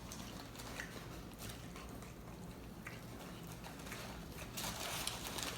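Faint sounds of a person eating tacos: scattered small crunches and clicks, with a louder rustle about four and a half seconds in.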